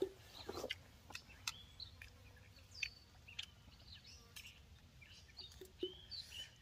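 Faint, scattered bird chirps, with a few light clicks from spoons and plates during eating.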